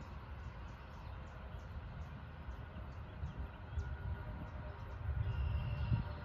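Outdoor ambience: a low, uneven rumble of wind on the microphone, growing louder near the end, with small birds chirping repeatedly in the background. No shot is fired.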